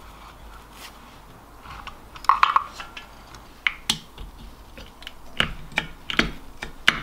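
Irregular small metal clicks and taps of a screwdriver and loose parts against the aluminium housing of a diesel air heater being taken apart. The clicks start about two seconds in, with a small ringing cluster first.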